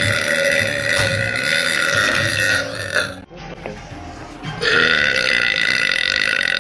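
A woman letting out two long, loud belches: the first ends about three seconds in, and the second starts about a second and a half later and is still going at the end.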